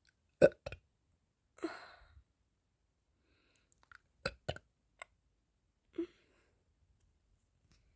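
A person's mouth close to the microphone: a few short, sharp clicks or gulps, the loudest about half a second in, a breathy exhale about a second and a half in, more clicks around four to five seconds, and a short low gulp near six seconds.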